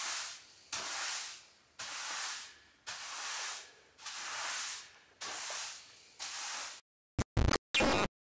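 Wide push broom swept across a smooth workshop floor, a swish with each stroke, about one stroke a second. About seven seconds in it cuts off, and a few short, sharp glitchy electronic bursts follow.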